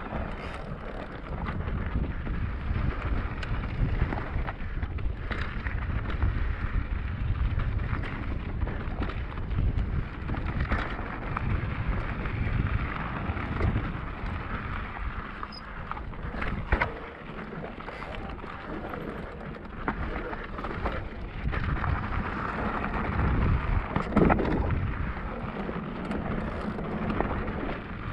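Electric full-suspension mountain bike riding down a dirt trail: tyres rolling over dirt and stones with scattered clicks and rattles from the bike, and wind rumbling on the microphone.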